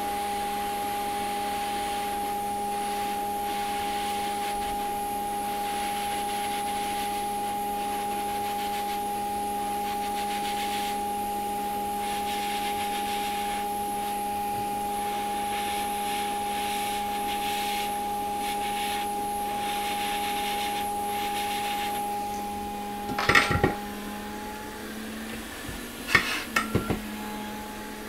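Hot air rework station blowing steadily with a constant hum while shrinking heat-shrink tubing. About 22 seconds in, the blowing drops off and winds down, and a few sharp clicks and knocks follow.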